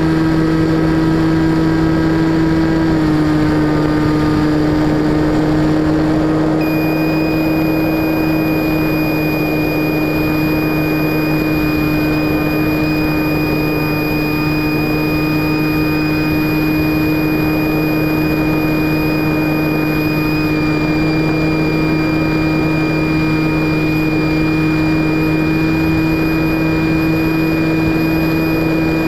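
FPV Raptor model plane's electric motor and propeller running at a steady hum, heard from the plane's own camera with wind rushing past. The pitch drops slightly about three seconds in and rises again near the end. A thin high whine joins in about seven seconds in.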